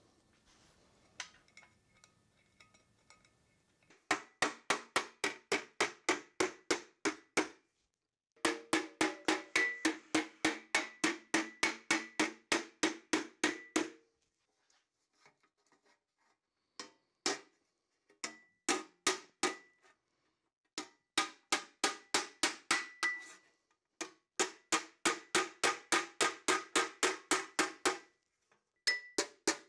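Hand hammer beating a sheet-metal piece over a brake rotor used as a forming stake, in quick runs of about four blows a second with short pauses and a few single blows, the metal ringing a little with each strike.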